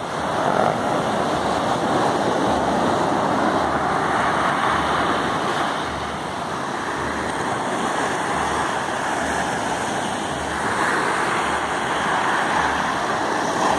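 Sea surf washing and breaking over a rocky shore: a steady, unbroken rushing.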